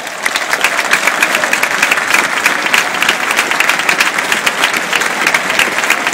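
Football supporters in a stadium stand applauding: many hands clapping in a dense, steady patter.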